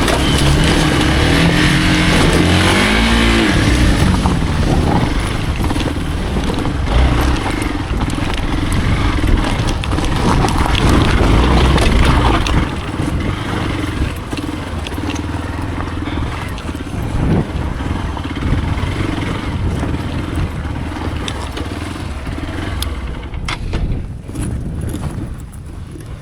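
Hero Xpulse single-cylinder motorcycle engine running under way on a trail, the revs rising and falling in the first few seconds, then running steadier and somewhat quieter from about halfway through.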